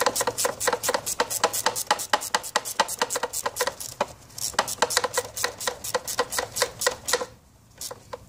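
Ratcheting wrench clicking rapidly, several clicks a second, as a screw on the outboard's shift rod is tightened. The clicking stops about seven seconds in, with one last click after.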